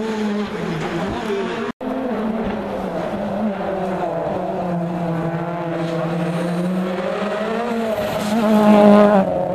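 Rally car engine revving hard, its pitch rising and falling through the gears as cars pass on the stage. It grows loudest near the end as a car goes by close, and the sound cuts out for an instant about two seconds in.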